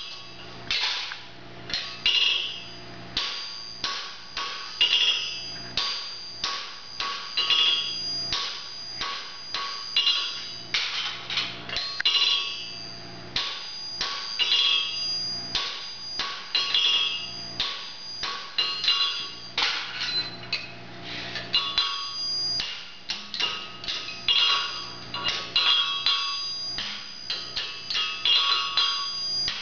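Farrier's hammer striking a horseshoe on a steel anvil, shaping the shoe: runs of sharp, ringing metal-on-metal blows that come in bursts every couple of seconds, with a steady low hum underneath.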